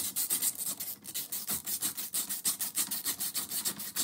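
Ratcheting driver tightening the screw of an AR-15 pistol grip, with a steady run of rapid, evenly spaced clicks.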